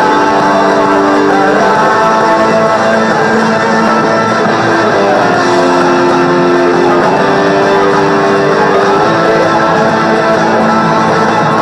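Rock band recording playing loudly, led by strummed, sustained guitars, with no singing in this stretch.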